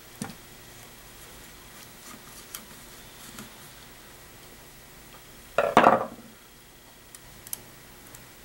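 A screwdriver works the plastic brush caps on a small electric motor, making scattered light clicks, with a louder short clatter of metal and plastic handling about six seconds in. This is the motor brushes being freed for removal.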